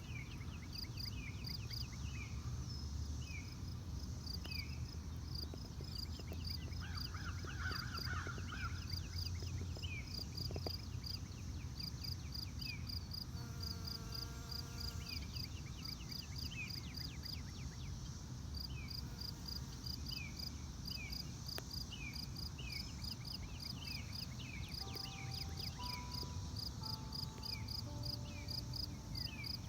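Outdoor animal chorus of calling frogs and insects: a steady run of rapid, evenly spaced high pulses with many short falling chirps scattered through it, over a constant low rumble.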